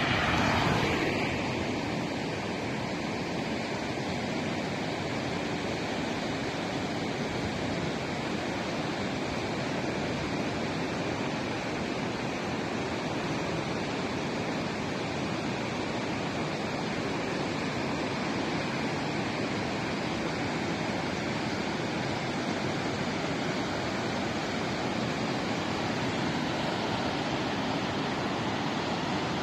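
Steady rushing of a fast, swollen mountain river in white-water flow. A car passes close by on the road in the first second or so.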